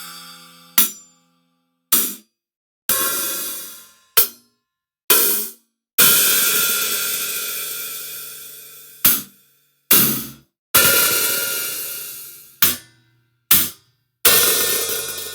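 Sampled metal percussion from the Ferrum Kontakt library, auditioned one sample at a time: about a dozen separate metallic strikes, some short, some ringing for two or three seconds with pitched overtones, each cut off to silence before the next.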